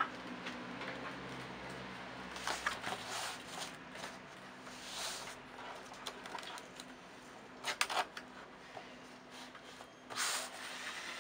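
Faint rustling and tapping of thin plastic masking pieces as they are laid on and pressed down onto a silkscreen frame's mesh, with a few sharper clicks about three-quarters of the way through and a brief louder rustle near the end.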